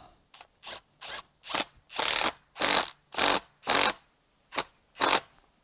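Milwaukee cordless impact driver hammering in about ten short trigger bursts, the middle ones longest, as it runs up the damper rod bolt at the bottom of a Suzuki DR650 fork leg through a multi-spline bit. The bolt is being nipped tight by feel, since it can't be torqued this way.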